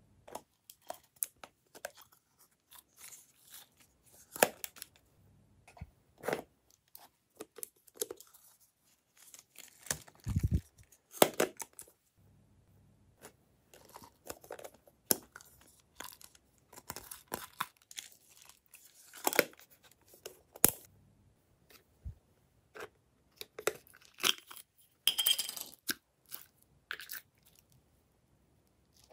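Hands handling glossy slime and a hard plastic toy container, making irregular crackles, clicks and small squishes, with a dull thud about ten seconds in and a longer crackling rustle near the end.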